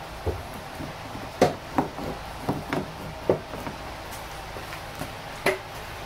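Irregular plastic clicks and knocks from a car's exterior door handle being pulled and worked by a gloved hand, trying to get it to come loose; the sharpest knocks come about a second and a half in and near the end.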